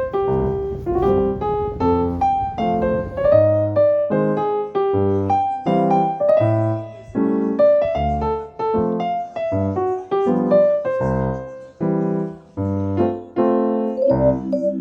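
Background music: a piano playing a bouncy melody in short separate notes over steady low chords.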